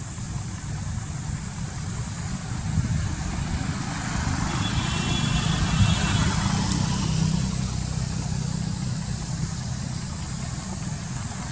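Steady low rumble of outdoor background noise, with a brief faint high-pitched tone about halfway through.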